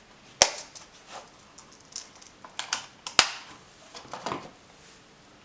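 Handling of a switchblade knife and its leather sheath with a snap fastener: two sharp clicks, one about half a second in and one about three seconds in, with lighter ticks and brief rustles between them.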